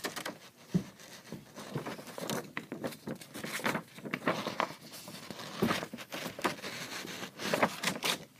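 Handling noise: irregular rustling, taps and scrapes, with a dull thump about a second in and louder knocks near the middle and near the end.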